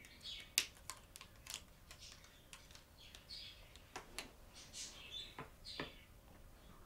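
Felt-tip marker squeaking on a white board as a letter is drawn, in short, irregular high chirps and sharp ticks, a few of them sliding down in pitch.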